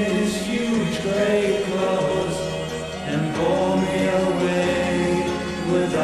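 Band music played from an original 1976 vinyl LP, with long held notes over a steady bass.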